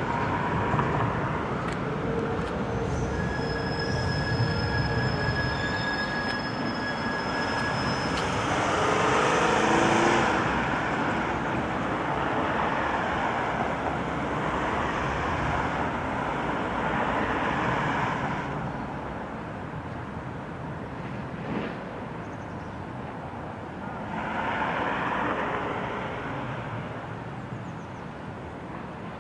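Railway noise of trains running through a station. It is loud and steady at first and falls off after about eighteen seconds, then swells again briefly near the end. A brief high-pitched squeal sounds about three to seven seconds in.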